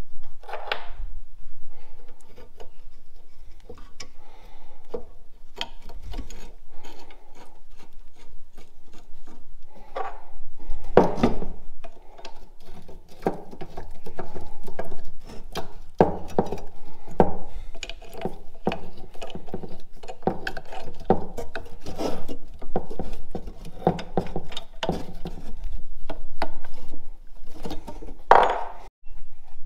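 Metal brake parts handled by hand on a workbench: a rear brake caliper carrier, hub, washers and bolts clink, knock and scrape together as the carrier is fitted with spacer washers. The knocks come in an irregular run and grow busier and louder about a third of the way in.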